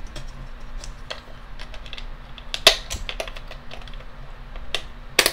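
Light plastic clicks and taps from handling a small clock's battery compartment as its plastic battery cover is fitted back on, ending in a sharper snap near the end.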